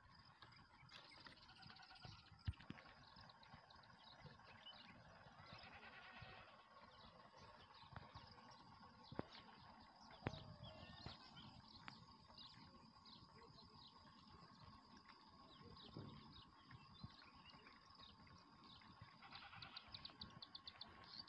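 Near silence outdoors: a faint steady insect-like drone, scattered soft clicks and rustles, and a few faint animal calls.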